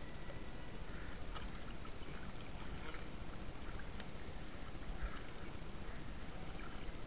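Steady rush of water with small splashes and drips as a wet fishing net is hauled in by hand.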